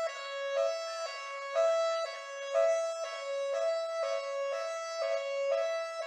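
London police car siren sounding its two-tone hi-lo pattern, switching between two pitches about twice a second.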